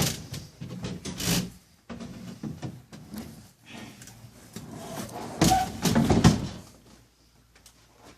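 Clunks, knocks and scraping from a PTAC through-wall air-conditioner unit being handled, with the loudest run of scraping and knocks about five to six seconds in.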